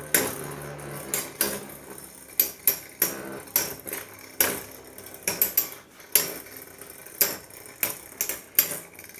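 Two metal Beyblades, Burn Phoenix and Phantom Orion, spinning and clashing in a plastic stadium: sharp metallic clinks at irregular intervals, about two a second.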